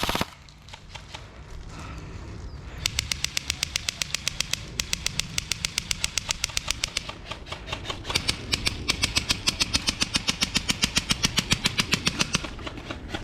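A rapid, even run of sharp mechanical clicks, about ten a second, from airsoft gear. It starts about three seconds in, breaks briefly in the middle and stops just before the end.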